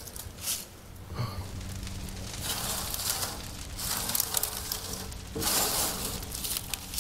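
Dry, dead daylily stems rustling and crunching in a few irregular bursts as handfuls are grabbed and pushed around in a plastic wheelbarrow.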